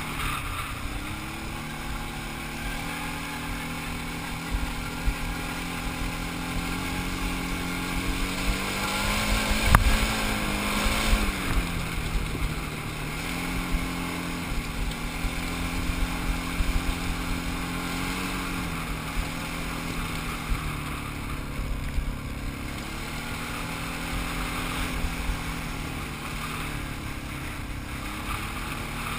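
Quad ATV engine running while riding a rocky dirt track, its pitch holding steady and then stepping up or down several times as the throttle and gears change. A sharp knock comes about ten seconds in.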